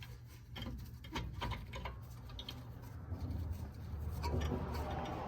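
Light, irregular metallic clicks and taps as a 13 mm brake caliper bolt is fitted through the caliper and started on its thread by hand.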